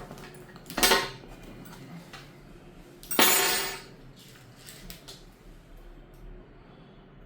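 Hard objects clattering during hands-on work on the laptop: a short clatter about a second in and a louder, longer clatter about three seconds in, with a few light clicks of parts and tools being handled.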